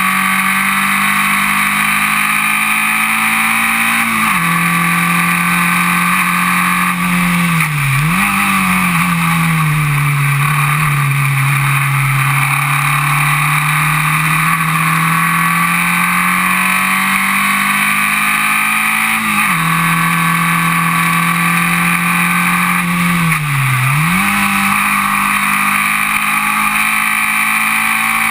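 Formula Vee race car's air-cooled 1200 cc Volkswagen flat-four engine running hard, heard from the open cockpit over a constant rush of noise. Its note steps down twice and twice dips sharply before climbing back, sagging slowly and rising again in between.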